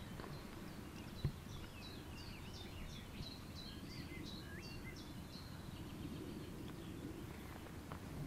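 Faint bird song: a run of short, high, falling chirps, about three a second, lasting a few seconds, over a steady low background rumble. A single light click about a second in.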